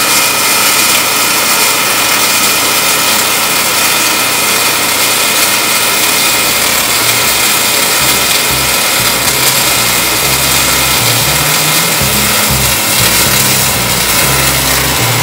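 MIG (gas metal arc) welding arc running steadily on steel plate, a loud continuous hiss and crackle as the wire feeds into the groove joint. Background music with a low bass line comes in about halfway through.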